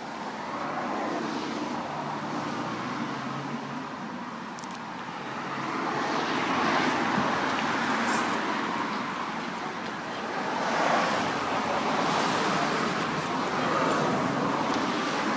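Road traffic going by: a steady noise of passing cars that swells and fades several times.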